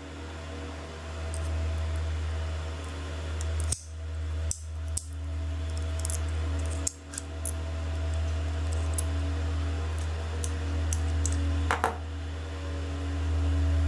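A steady low hum, with faint small metallic clicks and ticks as fingers work the head actuator arm loose from an opened 1.8-inch hard drive.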